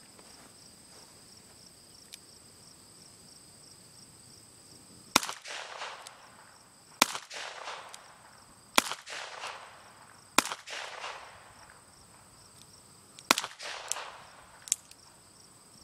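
Pistol firing six shots: four evenly paced about two seconds apart, then after a pause the last two fired in quick succession about half a second apart. Each shot cracks sharply and rings on in a fading echo for about a second, over the steady chirping of crickets.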